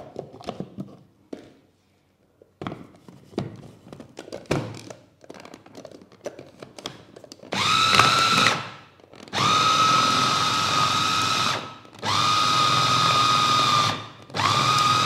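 Electric food chopper's motor running in four pulses of one to two and a half seconds each with a steady whine, churning thick ground mackerel paste mixed with sago starch. Before that, plastic clicks and knocks as the lid and motor head are fitted onto the bowl.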